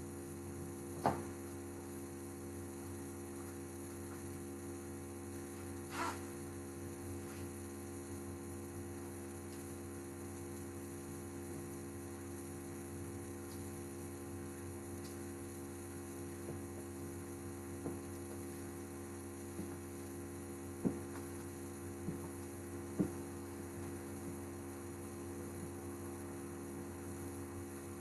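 Steady electrical mains hum, a stack of even tones, with a few short, scattered knocks and clicks; the loudest knock comes about a second in, and several more fall in the second half.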